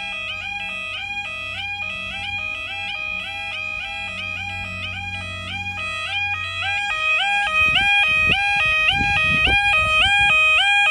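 Level crossing warning alarm sounding its two-tone warble, the pitch stepping up and down between two notes several times a second, the signal that the crossing is closing for an approaching train. About two-thirds of the way in a low rumble joins it and the overall sound grows louder.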